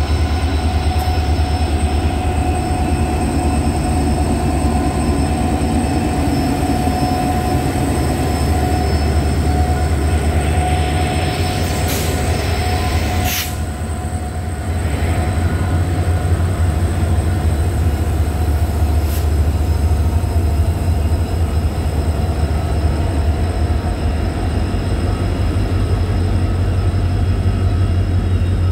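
Diesel locomotives at the head of a freight train passing close by at low speed: a deep, steady, pulsing engine rumble with a constant whine over it. The rumble dips briefly about halfway through as the gap between the first and second locomotive passes, with a few sharp clanks just before and once again later.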